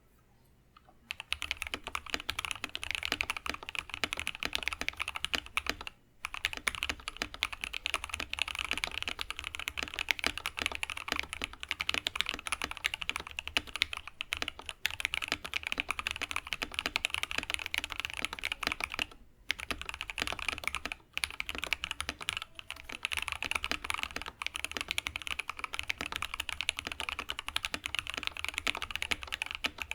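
Fast continuous typing on a KBD67 Lite custom mechanical keyboard with lubed Thic Thock Marshmallow linear switches on a polycarbonate plate. It starts about a second in, with a few short pauses along the way.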